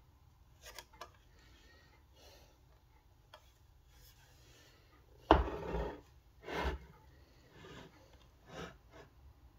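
A metal muffin tin of slime is handled and tilted on a table, giving short rubbing and scraping noises. The loudest comes about five seconds in, followed by smaller ones at roughly one-second gaps.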